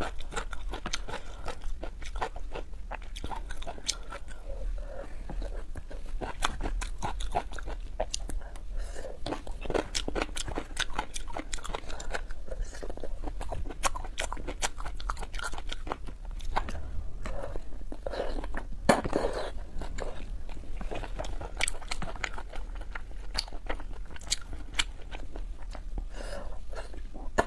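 Close-miked ASMR eating sounds: a person chewing and biting food, heard as a dense run of small mouth clicks, with one louder, longer sound about two-thirds of the way in.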